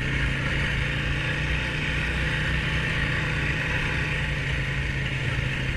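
Single-cylinder four-stroke Honda ATV engine running steadily, with no revving.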